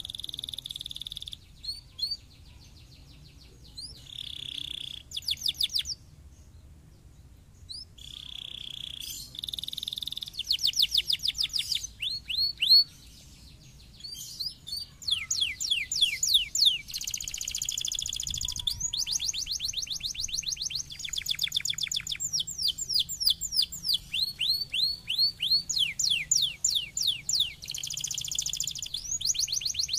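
Domestic canary singing: fast trills of rapid, repeated falling whistles. The phrases are broken by short pauses at first and run almost without a break after about fifteen seconds.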